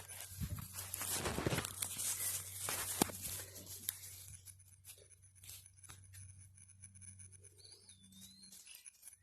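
Hound puppies scrabbling and rustling in their bedding for the first few seconds, with one sharp click, then scattered light scratches and a short high puppy squeak near the end.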